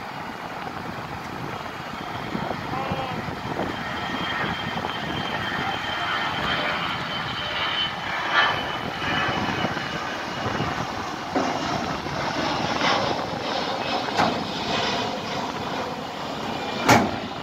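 Jet airliner flying low overhead: a steady engine rush with a faint high whine, growing louder. A sharp knock sounds near the end.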